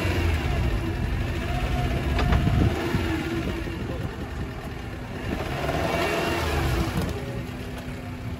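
Suzuki Jimny's engine revving up and falling back twice as it creeps through a muddy water hole.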